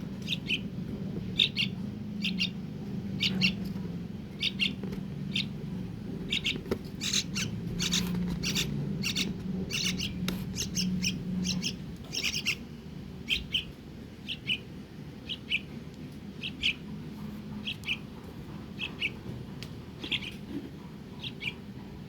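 Young kroang bird chirping over and over, short high calls coming about once or twice a second, with a low steady hum underneath that fades about halfway through.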